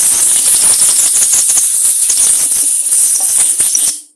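Compressed air blasting into a small engine's fuel tank to clear out dirt: a loud, rough hiss with a crackling rattle, cutting off suddenly about four seconds in.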